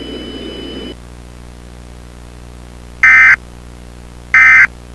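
Emergency Alert System end-of-message data bursts: two short, loud electronic screeches about a second and a half apart, starting about three seconds in, marking the close of the alert. Before them, a steady hiss with a faint high tone cuts off about a second in.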